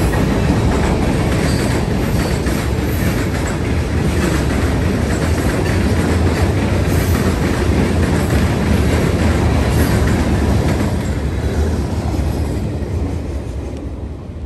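Freight train of covered hopper cars rolling past at close range, its wheels running loud and steady on the rails. The sound fades over the last few seconds as the end of the train goes by.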